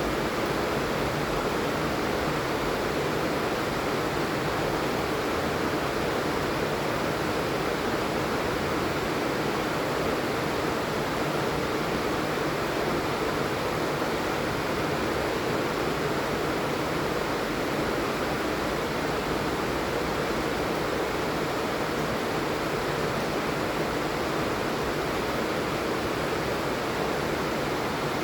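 Steady heavy rain falling, an even rushing hiss with no single drops standing out.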